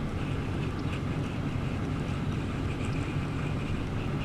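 Steady low rumble of background noise with no clear tone or rhythm.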